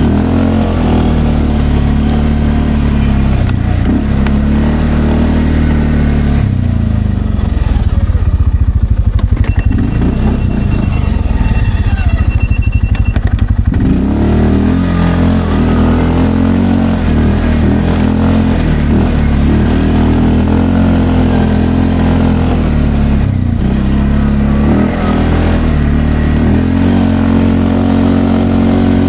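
Single-cylinder engine of a Linhai Landforce 550L ATV running while driving, its pitch rising and falling with the throttle. About a quarter of the way in it drops to a low, pulsing rumble for around seven seconds, then revs up again and holds.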